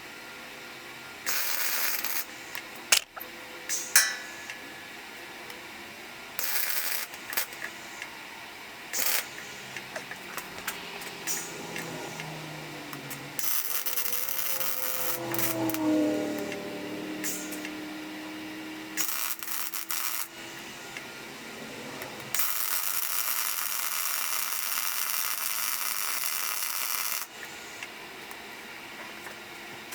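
Metal fabrication tool work: bursts of harsh hiss that start and stop abruptly, a few short ones early and the longest, about five seconds, near the end. Some clicks come early, and a pitched sound wavers around the middle.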